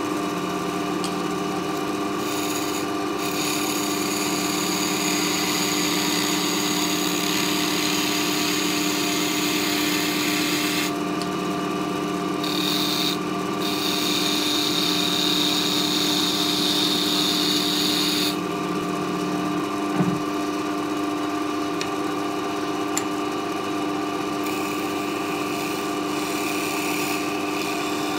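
Record Power wood lathe running with a steady motor hum while a gouge cuts a spinning hardwood blank, roughing it round. The cutting hiss swells and fades as the tool moves along the blank, and there is one short knock about two-thirds of the way through.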